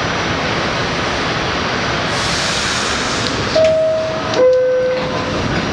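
Inside an R68 subway car: steady equipment noise, a short hiss of air about two seconds in, then the falling two-note door-closing chime about three and a half seconds in, signalling that the doors are closing.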